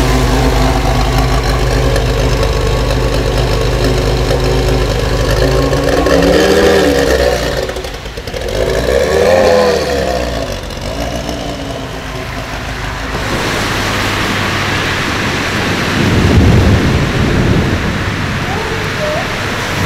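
A high-performance car engine running steadily, then rising and falling in pitch several times as it revs or drives past. After that, an even hiss of wet tyres and rain on the road, with a low swell of another passing engine near the end.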